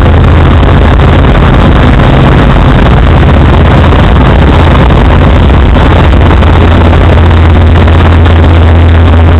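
EuroStar microlight's piston engine and propeller running steadily in flight, a loud even drone with rushing airflow, heard from inside the cockpit.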